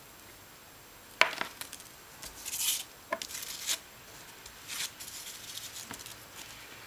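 A sharp tap about a second in, then short bursts of crinkling from crumpled aluminium foil as a soldering iron's tip is worked against it and the iron is laid down on it.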